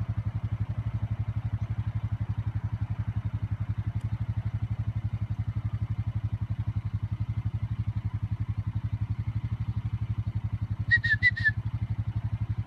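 An engine idling steadily with an even, rapid low throb. A few short, high whistle pips come near the end.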